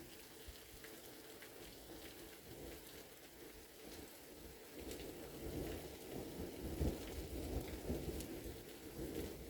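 Steady rain falling with scattered drop ticks, and thunder rumbling that builds from about halfway through.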